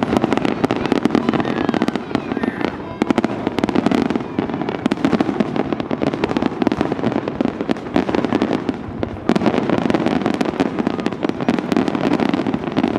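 Fireworks display: a dense, continuous barrage of bangs and crackling, with a brief lull just after nine seconds in.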